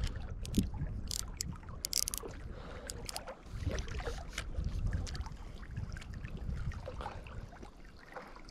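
Spinning reel being cranked to retrieve a lure, its gears ticking, with several sharp clicks in the first couple of seconds. A low rumble of wind on the microphone runs underneath.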